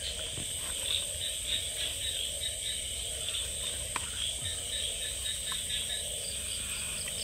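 Night chorus of crickets and other insects, a steady high trill with a pulsing chirp beneath it. A few faint clicks come from the net trap being handled, the sharpest about four seconds in.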